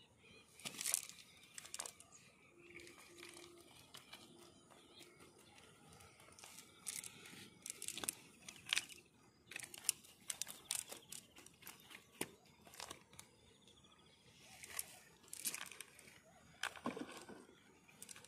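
Nylon cast net with sinkers being handled and shaken out on the ground as fish are picked from it: soft, scattered rustles and light clicks, coming and going.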